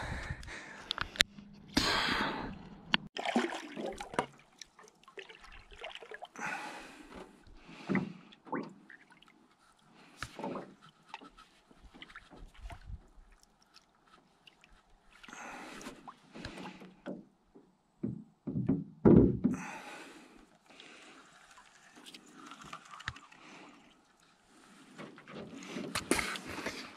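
A short wooden paddle dipping and pulling through calm water beside a small boat, in irregular strokes with dripping and light splashes, and occasional knocks of wood on the hull. The loudest knock comes about two-thirds of the way in.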